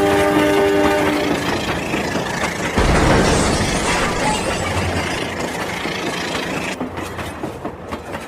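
Rail King toy train running with its train sound effects. A held horn-like chord stops about a second in, followed by rushing train noise that surges about three seconds in. A rapid run of clicks, like wheels on a track, starts near the end.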